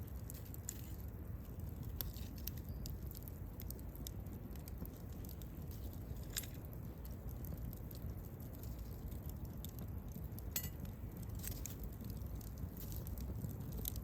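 Wood bonfire burning: a steady low rumble of the flames with frequent small crackles and pops, two of them sharper, near the middle and about three-quarters of the way through.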